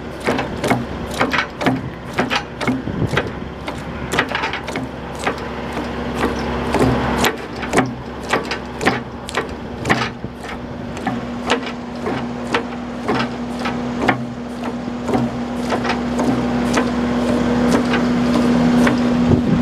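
Link-Belt 135 Spin-Ace crawler excavator running, with a steady hum from its engine and hydraulics and frequent irregular clanks and knocks from the machine at work. The sound builds louder toward the end.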